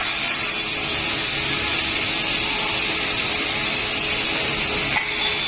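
Automatic wood-cutting machine running steadily, its saw cutting through wood.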